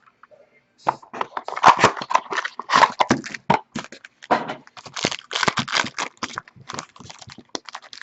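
Plastic wrapping and cardboard packaging of a trading-card box being torn and handled, a quick irregular run of crinkles and crackles starting about a second in.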